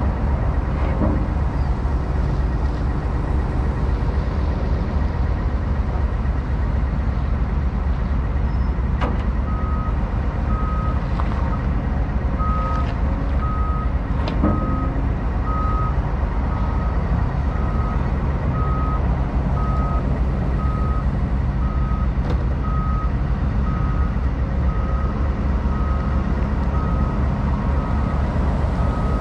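Heavy diesel machinery running with a steady low drone while a wheeled excavator travels toward a lowboy trailer. A travel/backup alarm starts beeping about a third of the way in and keeps a steady beat of a little over one beep a second, with a couple of faint knocks of the machine moving.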